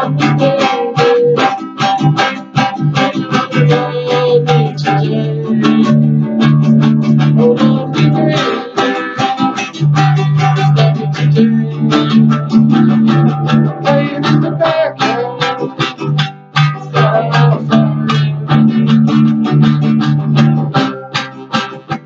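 Instrumental passage of a song: acoustic guitar strummed in a steady rhythm.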